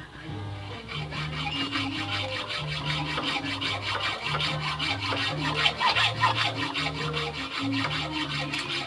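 Background music: a stepping bass line under a fast, scratchy rhythmic beat.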